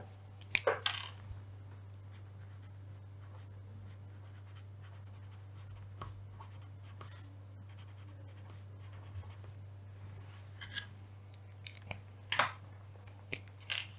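Pen writing on paper: faint, scratchy strokes, with a few sharper knocks near the start and near the end. A steady low hum sits underneath.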